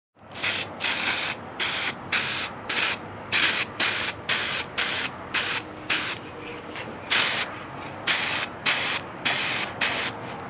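Aerosol can of silver spray paint spraying in short hissing bursts, about two a second, with a slightly longer pause around the middle.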